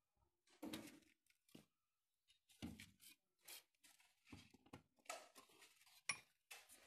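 Faint, irregular scrapes and knocks of a large PVC drain pipe being handled and laid into a trench, with one sharp click about six seconds in.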